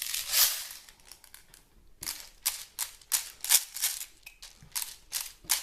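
Winding wheel of an airsoft high-capacity magazine being turned to wind its spring and feed pellets up. There is a short rasping rattle in the first second, then a string of sharp ratcheting clicks, about three to four a second.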